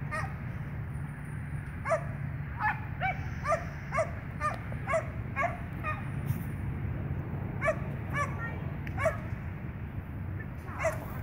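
A dog barking in short, high barks, a quick run of about two a second, then a few more after a pause, over a steady low hum.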